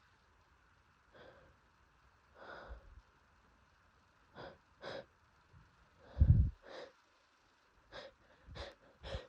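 A person with hay fever sniffling and snorting through an itchy, congested nose: about eight short, sharp nasal breaths. The loudest, with a deeper thud, comes about six seconds in.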